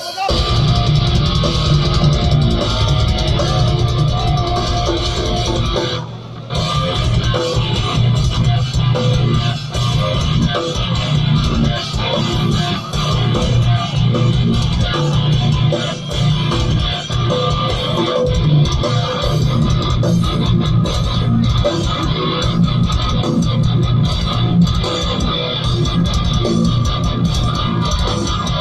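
Live rock band playing loud through a PA system, heard from the crowd: guitars, bass guitar and drum kit, with a short break in the low end about six seconds in.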